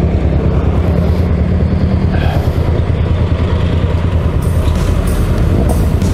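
Loud, steady low rumble of motorcycle engines and passing road traffic.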